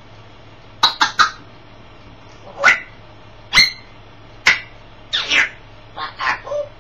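African grey parrot giving about ten short, sharp squawks and calls at uneven intervals, some sliding in pitch.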